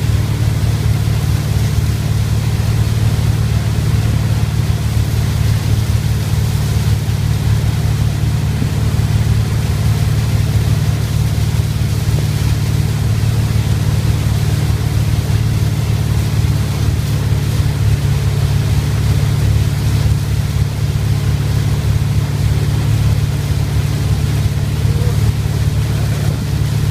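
Motorboat engine running steadily at towing speed, heard from aboard as a constant low drone, with the rush of water and wake spray.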